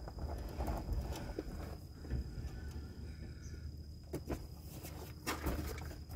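A few light clicks and knocks, spaced about a second apart, as the driveshaft and transmission output are turned by hand with the transmission in neutral, over a low steady hum.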